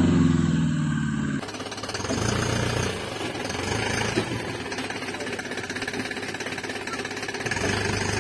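A pitched, motor-like hum that breaks off about a second and a half in, followed by a steady, fast mechanical rattle.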